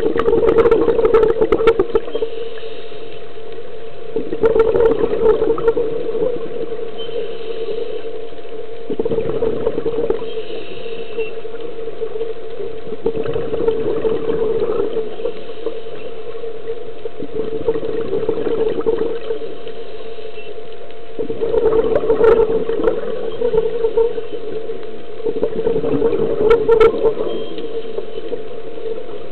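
Scuba diver's exhaled bubbles rushing out of the regulator in bursts of a second or two, seven times at about four-second intervals, over a steady low hum, heard underwater through the camera housing.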